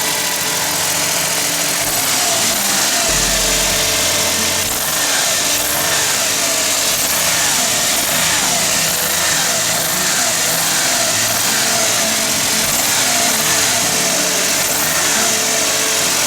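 Suzuki Wagon R's K6A 660 cc three-cylinder engine running steadily.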